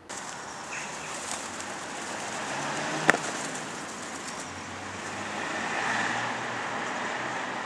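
Outdoor city-square ambience: a steady hiss of traffic noise with feral pigeons around, and a single sharp click about three seconds in.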